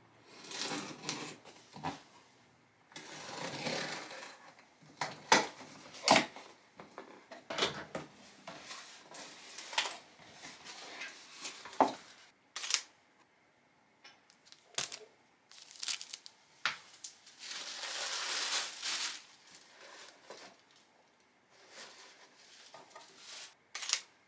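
A cardboard parcel being opened by hand: scissors cut through the packing tape, then the flaps and tissue paper rustle and crinkle. Several long spells of rustling are broken by sharp clicks and knocks from handling the box.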